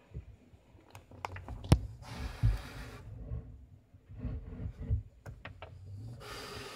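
Knocks, sharp clicks and scraping against the wood of a wooden box trap, with the loudest knock a couple of seconds in. Two stretches of hiss-like noise come about two seconds in and again near the end.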